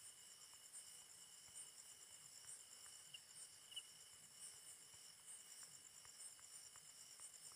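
Near silence, with a faint steady high-pitched chirring of insects such as crickets, and a few faint ticks.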